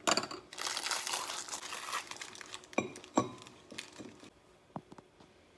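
Packaging being handled: a burst of crinkling and rustling for about two seconds, then a few separate taps and clicks.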